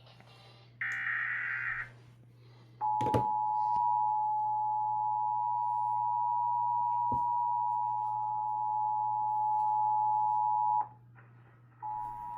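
Emergency Alert System tones: a buzzing SAME digital data burst about a second long, then after a click the two-tone EAS attention signal sounds steadily for about eight seconds. It cuts off and starts again about a second later, over a steady low hum.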